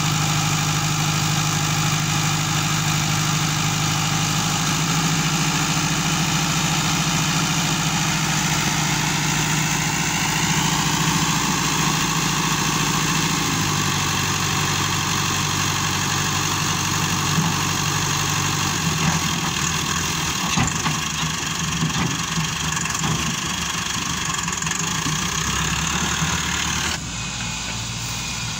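Massey Ferguson tractor's diesel engine running steadily, then revving up as its hydraulics raise the loaded tipping trolley bed. Scattered knocks come in the second half, and the sound drops suddenly and turns quieter shortly before the end.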